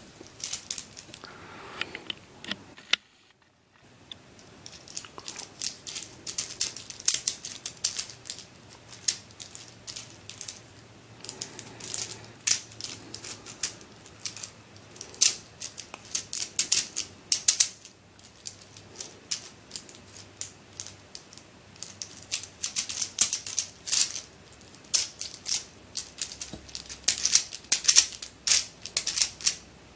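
Rubik's Rings puzzle being turned by hand to scramble it: irregular clicks and rattles of its plastic rings and balls, with a brief silent gap about three seconds in.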